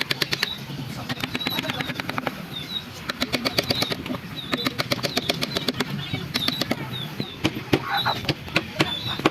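Runs of rapid sharp taps, several a second, typical of a mallet driving a carving chisel into wood. Short bird chirps sound behind them.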